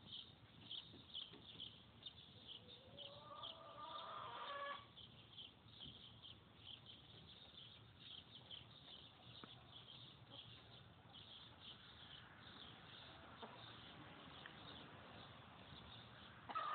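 Faint sound: a hen chicken gives one drawn-out, rising call about three seconds in, over continual faint high-pitched chirping.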